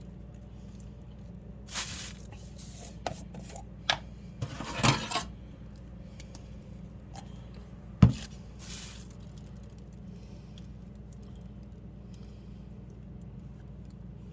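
Cutlery and dishes being handled: scattered clinks and scrapes, a longer scrape about five seconds in and a sharp knock about eight seconds in, over a steady low hum.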